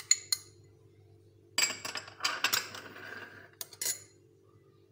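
Metal spoon clinking and scraping against a small glass bowl as melted butter is scraped out into flour: a few light clinks at the start, then, after a short pause, about two seconds of scraping and clinks ending in two sharper clinks.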